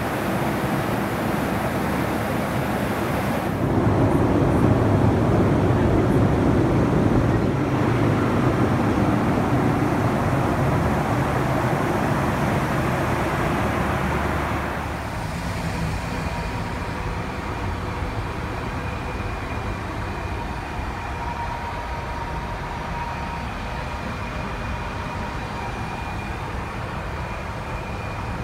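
Steady cabin noise of a Boeing 737-400 airliner in flight, from engine and airflow. It grows louder a few seconds in. About halfway through it drops to a quieter, muffled hum with a faint steady whine, heard from inside the small lavatory.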